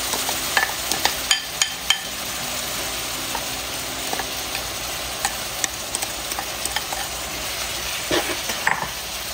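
Floured pork strips sizzling steadily in a hot stainless steel frying pan as soy-garlic-ginger sauce goes in, with a wooden spoon scraping and stirring. Several sharp clinks come in the first two seconds, and a few more near the end.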